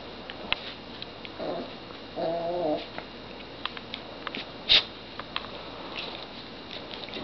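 Small dog making a funny vocal noise: a short pitched call about a second and a half in, then a longer wavering one. Scattered sharp clicks run through it, the loudest just before the five-second mark.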